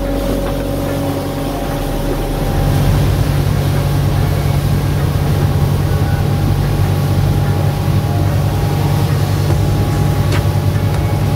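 Motorboat engine running steadily, getting louder about two and a half seconds in and holding there.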